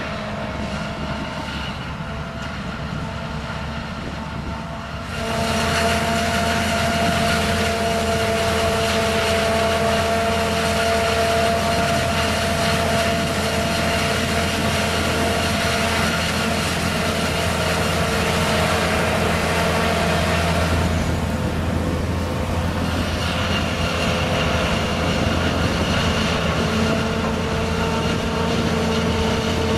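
Self-propelled forage harvester at work chopping maize, with the tractors hauling the trailers alongside: a steady, loud machine drone with a steady high whine over it. It grows louder about five seconds in.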